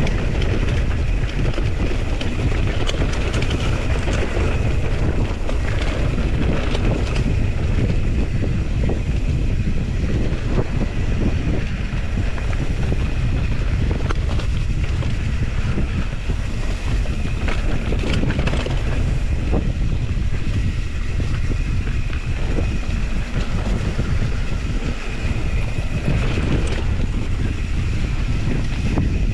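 Wind buffeting an action camera's microphone while a mountain bike rolls fast along a dirt trail, with tyre noise and scattered rattles and clicks from the bike over rough ground.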